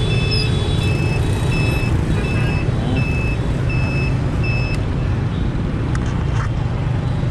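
A scooter's turn-signal beeper beeping about once every 0.7 seconds over a steady low rumble of engine and road. The beeping stops about four and a half seconds in, once the turn is made.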